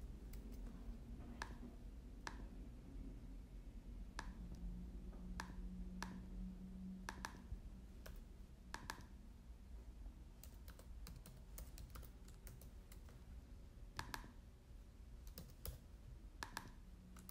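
Faint computer keyboard typing and clicks: single key presses at irregular intervals while a column name is typed into a form.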